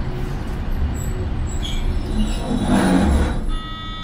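Hiroshima Electric Railway 700-series tram running on street track, heard from inside the cab: a steady low rumble, slowing near a stop, with a brief louder rush of noise about two and a half seconds in. A short electronic beep sounds near the end.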